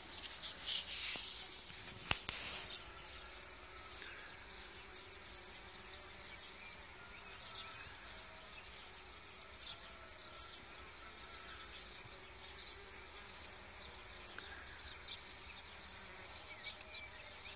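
Faint buzzing of Osmia mason bees flying around their nesting tubes, with scattered short bird chirps. A rustle and a single sharp click come in the first two seconds or so.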